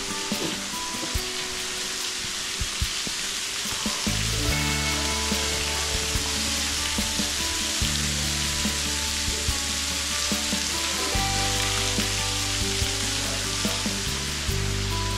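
Steady hiss and splash of a thin waterfall pouring off a sandstone overhang onto the rocks below. Soft background music with sustained chords plays alongside it, its low notes coming in about four seconds in.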